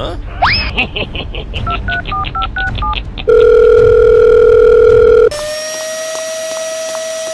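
Mobile phone dialing: a quick rising whoosh, then a fast run of touch-tone keypad beeps, then a loud steady phone tone held for about two seconds. After that, a quieter steady tone with regular light ticks takes over.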